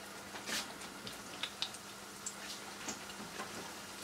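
Hot vegetable oil crackling in a frying pan around yeast-dough pirozhki as they start to fry: scattered small pops and ticks, a few a second, over a faint steady sizzle.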